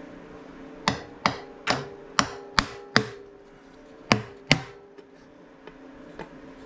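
Rubber hammer tapping the aluminium primary cover of a Harley Sportster to break its gasket seal and free it: six quick taps about a second in, then two more a second later, each ringing briefly in the cover.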